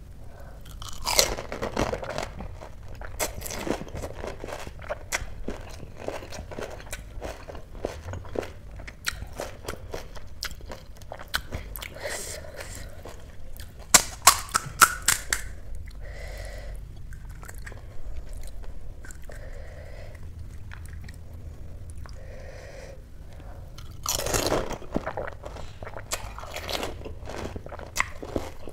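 Crisp panipuri shells cracking as they are bitten, then crunched and chewed. There are three bouts of loud crackling bites, about a second in, around fourteen seconds, and near twenty-four seconds, with quieter chewing between them.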